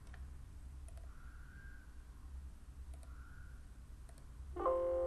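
Faint computer mouse clicks over a low steady hum. About four and a half seconds in, a louder steady pitched tone with several overtones sets in and holds.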